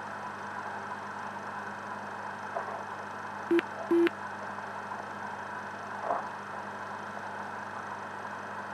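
Two short low electronic beeps about half a second apart, the second slightly longer, from the Jeti Duplex telemetry setup, over a steady electrical hum and hiss.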